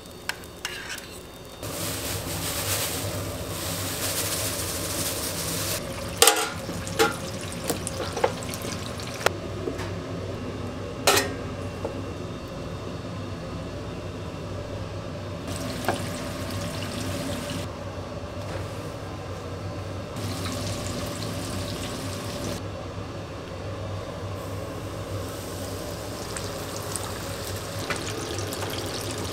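Busy kitchen sounds: a steady hiss of food sizzling and frying, broken by sharp clinks and knocks of metal utensils and pans, most of them bunched about a third of the way in. The background hiss changes abruptly several times.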